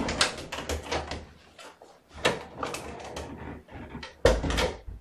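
A run of clicks, knocks and rattles from objects being handled, with a heavier thump about four seconds in.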